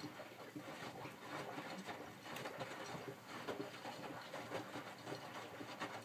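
Miele W562 washing machine drum turning during the rinse, wet cotton bedding sloshing and splashing in the rinse water with a dense, irregular patter.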